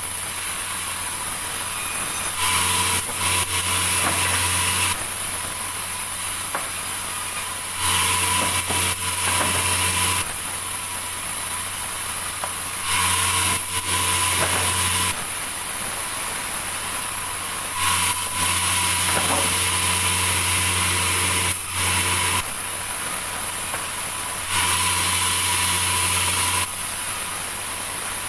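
Sawmill machinery running continuously while cutting meranti timber, a steady hum with a high hiss. About every five seconds it gets louder for a couple of seconds.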